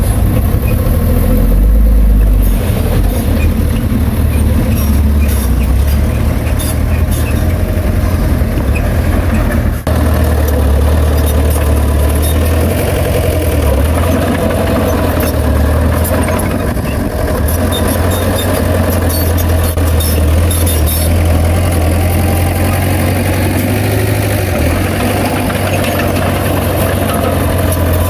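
Heavy diesel engine of earthmoving equipment running steadily with a strong low rumble, with an abrupt shift about ten seconds in.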